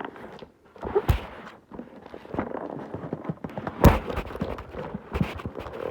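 A package being opened by hand: irregular rustling and scraping of the packaging, with two sharp knocks, one about a second in and a louder one near four seconds in.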